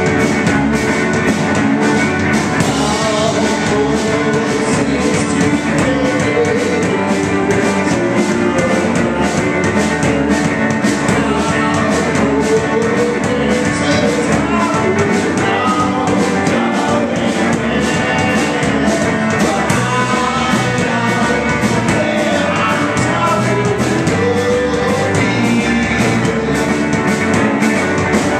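A live rock band playing loud: electric guitar, electric bass and a drum kit with cymbals.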